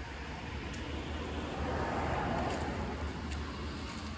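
A vehicle passing on the road: a rush of tyre and engine noise that swells to a peak about two seconds in and then fades, over a steady low rumble.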